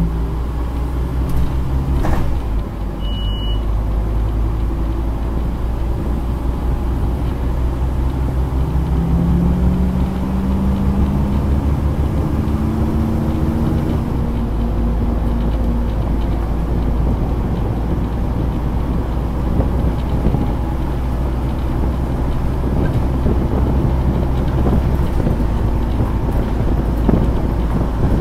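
Scania N230UD double-decker bus heard from inside the lower deck on the move: a steady low engine drone, with a drivetrain whine that rises in pitch for several seconds as the bus accelerates. A short high beep sounds about three seconds in.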